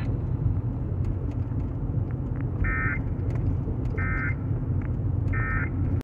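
Three short buzzy digital data bursts from an Emergency Alert System broadcast, played over a car radio, about a second and a half apart: the end-of-message code that marks the close of the alert. Under them runs the car's steady low rumble.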